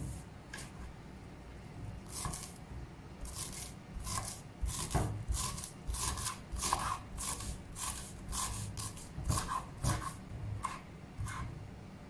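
A large kitchen knife chopping fresh coriander on a wooden cutting board: a run of short sharp strikes, about three a second, starting about two seconds in. One knock sounds at the very start.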